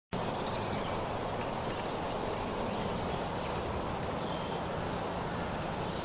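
Steady outdoor natural ambience: an even, unbroken background noise, with faint high-pitched chirping in the first half-second.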